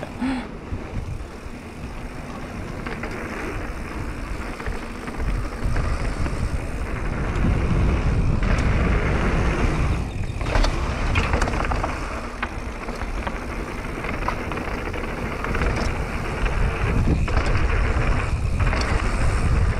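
Mountain bike riding fast downhill: wind rushing over the camera microphone and the tyres rumbling over wooden boardwalk planks and dirt trail, with a few short rattling clicks from the bike.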